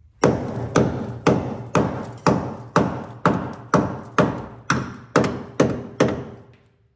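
Hammer blows on the rusty steel frame rail of a 1980 Toyota pickup, about thirteen even strikes at roughly two a second, each ringing briefly. The frame is being beaten to test it for rust rot, knocking loose rust.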